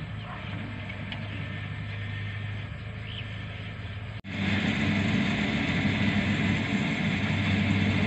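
Kubota combine harvester's diesel engine running steadily as it harvests, a low hum with a mechanical din over it. About four seconds in, the sound cuts out for an instant and comes back louder.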